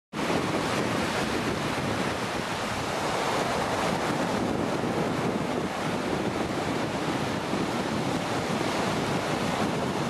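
Sea surf washing onto a sandy beach in strong wind: a steady rushing noise.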